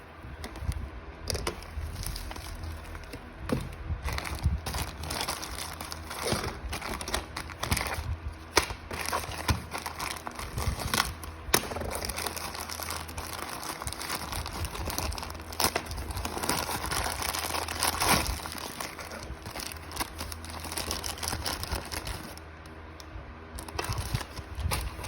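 Plastic parcel packaging crinkling and rustling as it is handled and opened by hand, with many sharp crackles, over a steady low hum.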